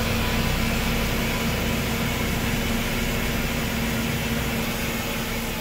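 Horizontal milling machine running, a steady hum with hiss, with no cutting heard; the sound starts to fade out near the end.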